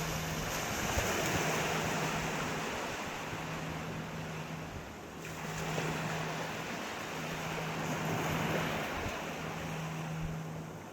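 Sea waves washing in, swelling and ebbing twice. A steady low hum runs underneath and breaks off briefly every second or two.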